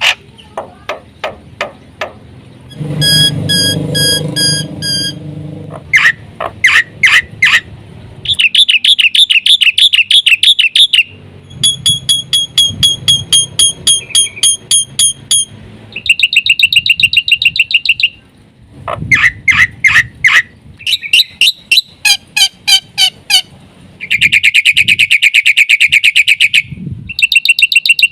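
Black-winged myna (jalak putih) in full song: a long run of varied phrases of rapid chattering note series, fast trills and ringing whistled notes, with short breaks between them. The song is packed with isian, phrases borrowed from other birds.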